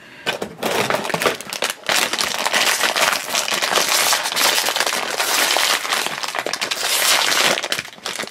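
Foil blind-bag wrapper of a Ring Pop Puppies candy ring crinkling steadily as hands open and crumple it, easing off briefly near the end.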